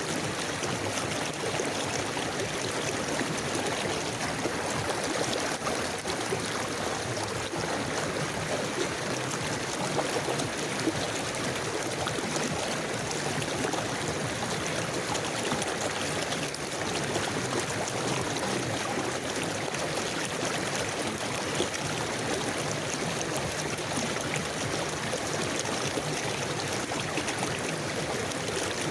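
Forest river flowing steadily, an even rushing and gurgling of water.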